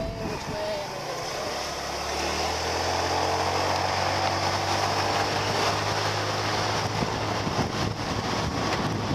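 Motorbike engine picking up speed about two seconds in, then running at a steady pitch, with wind rushing over the microphone.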